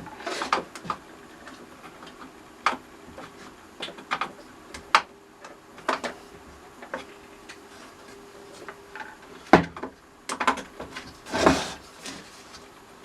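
Irregular clicks, taps and knocks of a small tool case and a mini belt sander being handled and set up, with a couple of louder clunks near the end.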